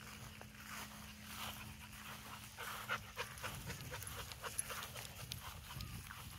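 A dog panting in repeated short breaths.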